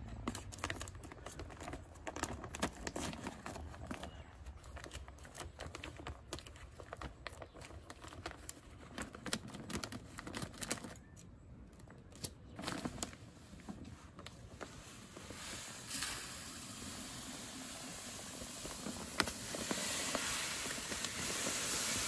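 Plastic bag of grub-killer granules crinkling and crackling as it is handled and opened, then the granules pouring from the bag into a plastic broadcast spreader's hopper, a steady hiss starting about two-thirds of the way through and growing louder near the end.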